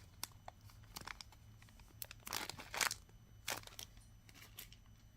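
Plastic packaging crinkling and rustling in short, irregular bursts as beads are handled and put back into their bag.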